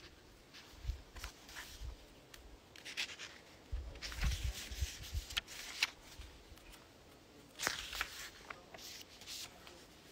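Paper rustling as sheets or book pages are handled, in short scattered bursts with small clicks and soft low bumps.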